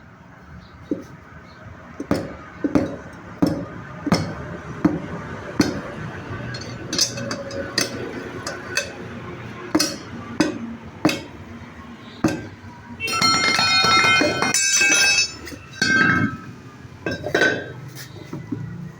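Tyre being taken off its wheel with metal tools: a dozen or so sharp metallic clinks and knocks. From about 13 to 15 seconds in comes a loud stretch of bell-like ringing tones.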